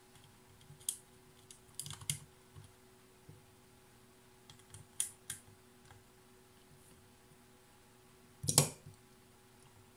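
Scattered small clicks and taps from handling the plastic case of a portable radio speaker during reassembly, with one louder knock near the end.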